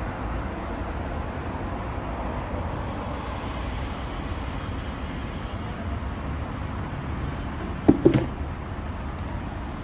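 Steady low rumbling background noise, with a brief knock about eight seconds in.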